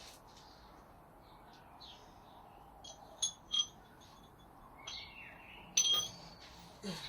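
Metal hand tools clinking against each other or against metal parts, a few short ringing clinks with quiet between them.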